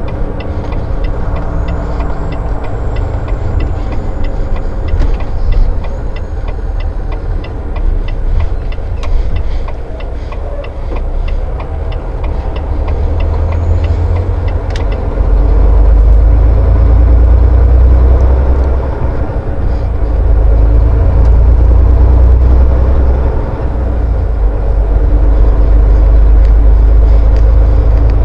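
Semi truck's engine running with road noise, heard from inside the cab. A regular ticking runs through the first half, and the deep engine drone grows louder from about halfway as the truck pulls on.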